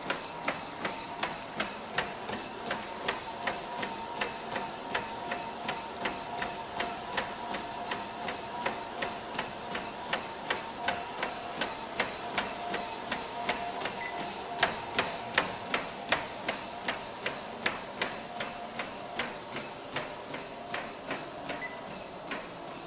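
A person running on a motorized treadmill: footfalls strike the belt in an even rhythm of about three a second. Under them the treadmill runs with a steady whine and hiss.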